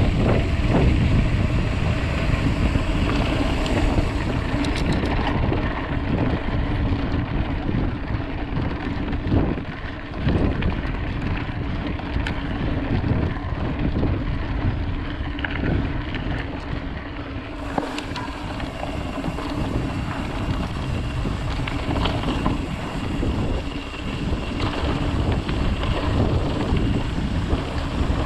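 Wind rushing over the microphone of a mountain bike riding a dirt singletrack, with the tyres rumbling on the dirt and short knocks and rattles from the bike over bumps.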